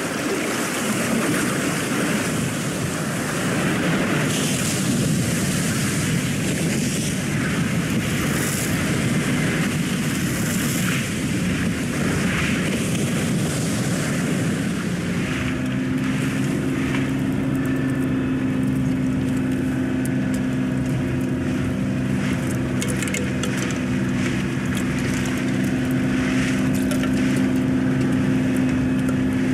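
Film soundtrack of landing craft at sea: a steady hiss of waves and spray, joined about halfway through by a steady low engine drone, with only natural sounds and no music.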